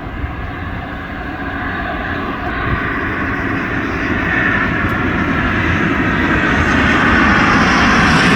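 Airbus A350-900's Rolls-Royce Trent XWB jet engines running, a steady roar that grows gradually louder.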